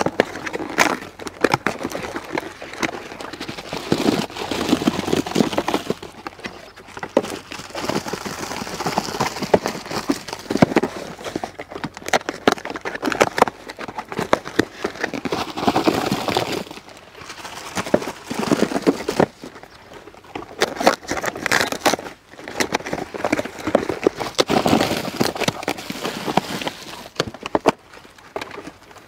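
Plastic-wrapped KitKat bars and cardboard cartons being handled and piled up: irregular crinkling and rustling with many small clicks and taps.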